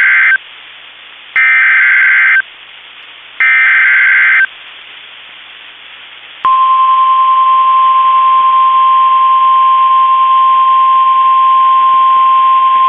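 NOAA Weather Radio SAME header: the end of one burst of warbling digital data and then two more, about a second apart. About two seconds after the last, the steady 1050 Hz warning alarm tone starts and holds, signalling a tornado warning that is about to be broadcast.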